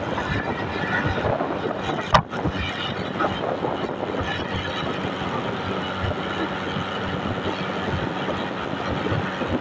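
Steady road and engine noise from a moving vehicle travelling along a paved road, with a brief dropout about two seconds in.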